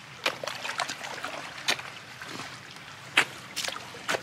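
A person wading waist-deep through pond water in chest waders: water sloshes around the legs, with several sharp splashes as each stride breaks the surface, the loudest about three seconds in.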